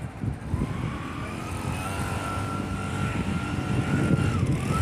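A vehicle engine accelerating over a low rumble: a whine climbs over the first couple of seconds, holds steady, then dips briefly near the end and climbs back.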